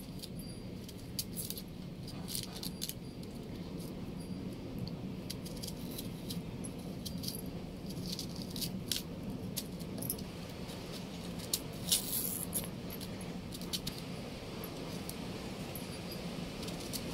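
Irregular small clicks and crackles of a knife scraping and peeling dry, papery onion skins by hand, mixed with light clinks from the bangles on the wrists as the hands work.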